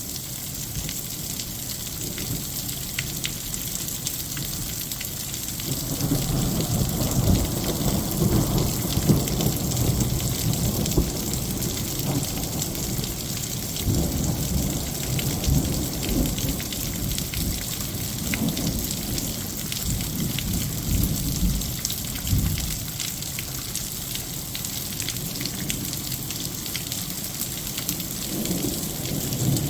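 Heavy rain falling steadily, with thunder rumbling low from about six seconds in, rolling on for a long stretch and swelling again near the end.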